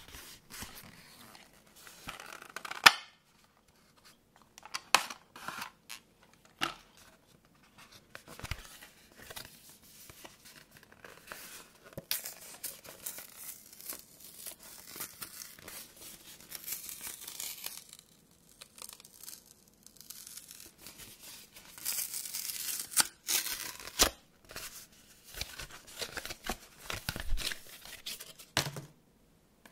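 Cardboard box being torn open by hand along its tear strip and its layers peeled apart: stretches of ripping and rasping paper fibre, with sharp snaps and clicks, the loudest snap about three seconds in.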